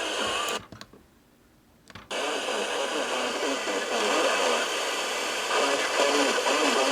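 Radio hiss and static with faint, garbled voices buried in it. The signal drops out for about a second near the start, then the hiss comes back and runs steadily.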